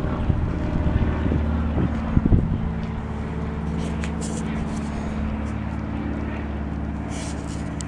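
Small Briggs & Stratton single-cylinder four-stroke engine on a mini bike running steadily at idle, with a few brief sharp sounds in the first two and a half seconds.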